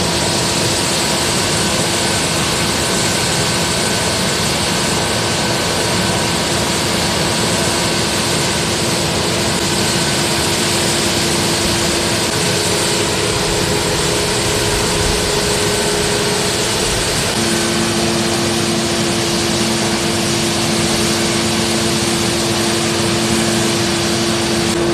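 Case IH 6140 combine running steady and loud, its machinery making a dense, even noise with a few held tones. About two-thirds of the way through, the tones step to a new, stronger pitch.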